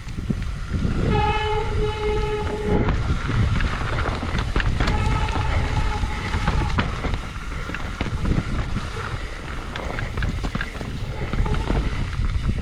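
Mountain bike disc brakes squealing in two long, steady squeals, the first about a second in and the second around five seconds in, typical of wet brakes. Under them the bike rattles and rumbles over rough, rooty trail.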